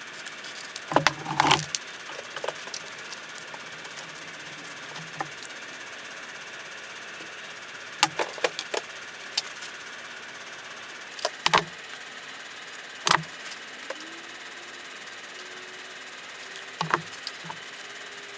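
Scattered sharp clanks and knocks of metal scuba regulator parts and tools being handled, coming in small clusters of two or three, over a steady faint hiss.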